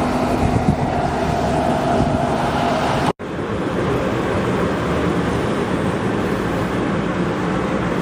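Steady vehicle rumble with a faint whine. The sound cuts out completely for a split second a little past three seconds in, then resumes without the whine.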